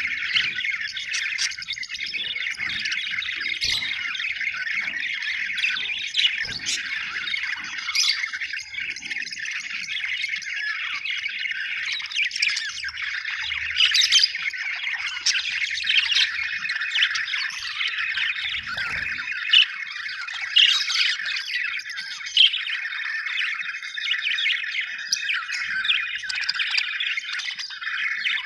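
Budgerigars chattering and warbling without a break, several voices overlapping, with louder sharp chirps now and then.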